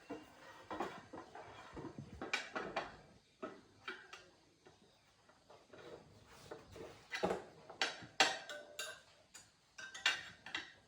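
Metal hand tools clinking and knocking at irregular intervals, with a cluster of louder clanks about seven to eight seconds in.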